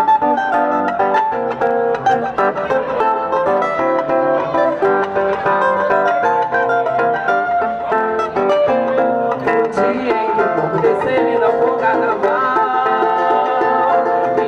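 Instrumental break in a samba song: plucked string instruments play a busy melody over the accompaniment, with no singing.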